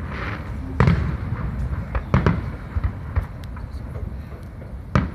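Aerial fireworks shells bursting: a sharp bang about a second in, a quick cluster of three around two seconds, and another near the end, with fainter pops between.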